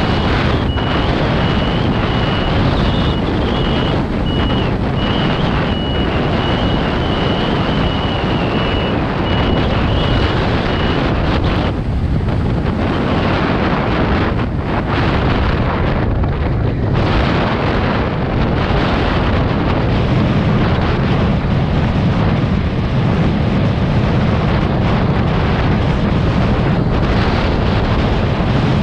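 Wind rushing over the microphone on a moving vehicle at road speed, a loud steady roar that grows heavier in the low end in the second half. A rapid high beeping, about two a second, runs through the first ten seconds or so.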